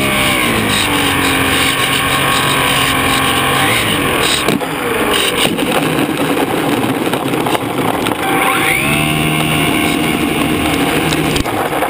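Electric motor and propeller of a HobbyZone Super Cub RC plane whining, heard from a camera mounted on the plane, with its pitch sliding as the throttle changes. From about four and a half seconds in the steady whine gives way to a rougher, noisier stretch, and it returns steady a few seconds before the end.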